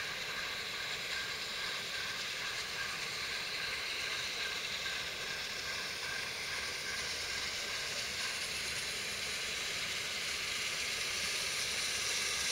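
Peppercorn A1 steam locomotive 60163 Tornado approaching while still some way off: a steady hissing rush from the train and rails that slowly grows louder toward the end.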